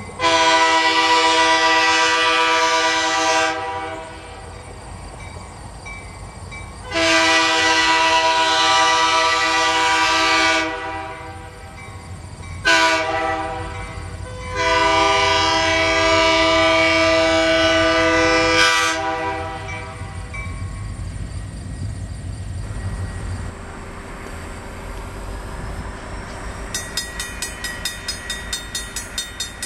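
EMD F-unit diesel locomotive's horn sounding the grade-crossing signal: two long blasts, a short one, then a final long one, several tones at once. The locomotive's low engine rumble follows. Near the end a crossing bell rings rapidly.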